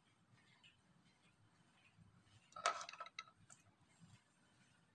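A few light clicks and knocks of plastic baby-bottle parts being handled, bunched together from about two and a half to three and a half seconds in, over faint room tone.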